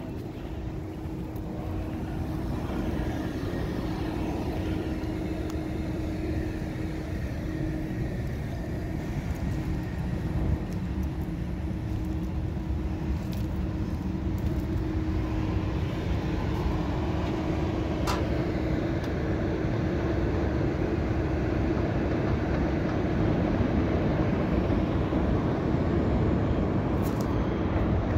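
Steady low rumble of city traffic heard from a high rooftop, with wind and a steady hum throughout, growing slowly louder. A single short click sounds about two-thirds of the way in.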